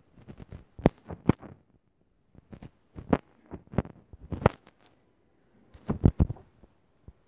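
Fingertip taps and rubs on a phone's touchscreen, picked up by the phone's own microphone: several short clusters of sharp clicks and knocks with quiet gaps between them.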